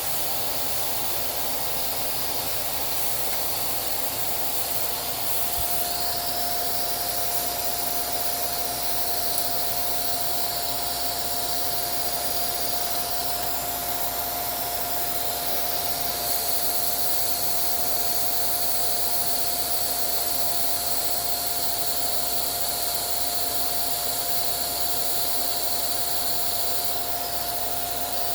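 Small vacuum cleaner running steadily, a constant whine over a hiss, as it draws lint and dust from a sewing machine.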